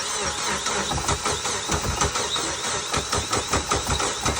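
Mitsubishi Lancer Evolution X engine being cranked on the starter, a fast, even, rhythmic chugging that starts abruptly. It turns over without catching: the car won't start.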